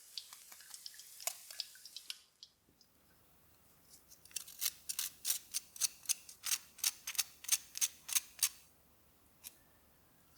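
Chicken frying in hot oil, hissing and crackling, stops suddenly after about two seconds. After a short pause comes a quick run of sharp clicks, about four a second, for roughly four seconds.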